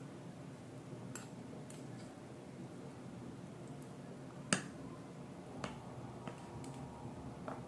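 Eating sounds: a few short, sharp clicks and smacks of cutlery and mouths over food, the loudest about four and a half seconds in, over a steady low hum.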